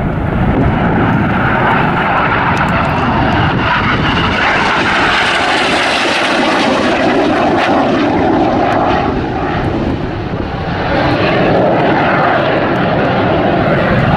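Loud, continuous jet noise from BAE Systems Hawk T1 trainers' Rolls-Royce Turbomeca Adour turbofans as the jets fly a display overhead. The rush grows brighter for a few seconds around the middle as a jet passes closer, dips briefly about ten seconds in, then builds again.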